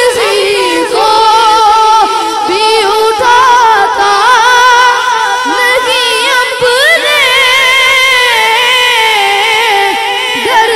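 A boy singing an Urdu naat solo into a microphone, one high voice without instruments, drawing out long ornamented notes that waver and glide.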